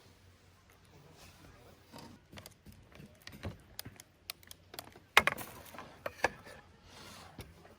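A series of irregular clicks, knocks and clatter of hard objects being handled, with the loudest knocks about five and six seconds in.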